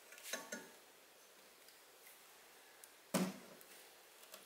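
Short knocks and clatter from a small metal loudspeaker frame and its parts being handled on a wooden workbench: two or three quick knocks near the start, then one sharper knock about three seconds in.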